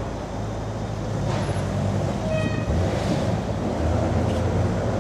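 Bentley Continental GT's engine running at low speed as the car pulls away, a low hum that grows louder after about a second. A brief high toot sounds about two and a half seconds in.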